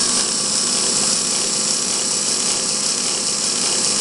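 Fischertechnik model gearbox driven by its small electric motor, running steadily in third gear: a continuous high whir of the motor and the meshing plastic gears and shafts.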